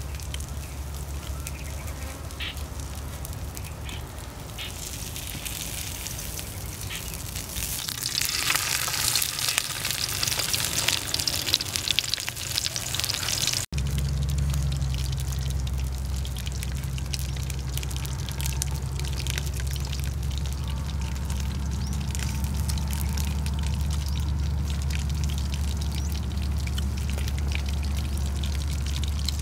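Fish frying in a pan over a small wood fire: a hissing sizzle with fine crackles, over a steady low rumble. About eight seconds in the sizzle grows louder for several seconds, then cuts off suddenly. After that the low rumble continues with only faint crackles.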